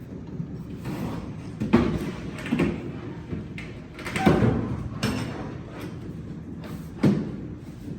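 Four knocks and thumps, spaced irregularly, of wooden cabinet parts being handled and set against each other while wall cabinets are mounted. The one a little past the middle is the loudest and longest.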